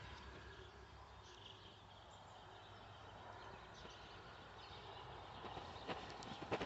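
Quiet outdoor garden ambience: a faint, steady background hush with no clear single source.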